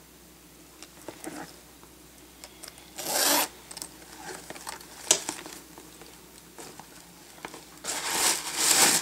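Handling noise from a Louis Vuitton bag being rubbed and shifted in the hands: a few brief scraping rustles, the longest near the end.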